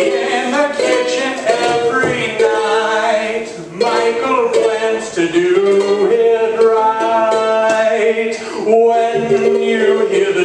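Ukulele playing with a man singing, a live song performance.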